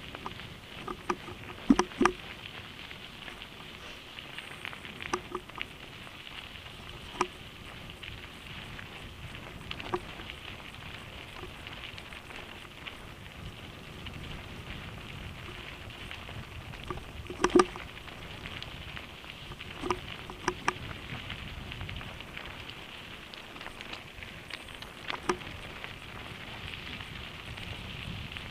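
Mountain bike rolling fast down a gravel road: a steady crunching hiss of tyres on loose gravel, with scattered sharp knocks and clacks as the bike jolts over stones. The loudest knocks come about 2 seconds in and about two-thirds of the way through.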